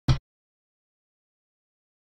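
A single short, deep percussive thump with a bright edge, lasting well under a quarter second: an added sound effect.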